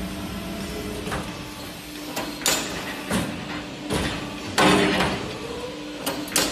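CNC tube punching machine working through its cycle: about seven sharp clunks and short noisy bursts from its clamping and punching gear, the loudest a little past halfway, over a steady machine hum.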